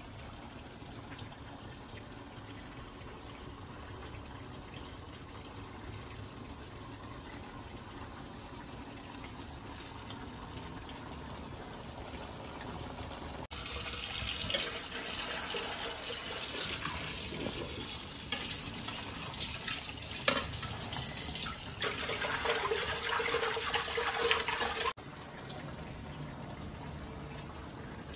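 Fish curry cooking in a steel kadai: the liquid gravy bubbles and sizzles as a steel spatula stirs and scrapes the pan. It is loud for about ten seconds from roughly halfway in, then cuts off abruptly; before that there is only a faint steady background.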